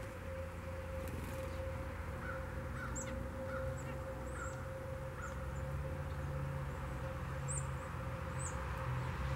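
Wild birds calling: a run of short repeated calls about twice a second, with scattered high thin chirps, over a steady low rumble.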